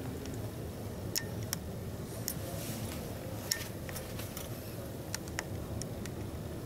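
Steady low background rumble of a busy exhibition hall heard from inside a parked truck cab, with scattered sharp clicks and ticks.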